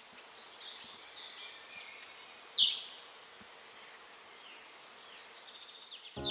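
Outdoor ambience: a steady high insect hiss, with a few short falling bird chirps about two seconds in.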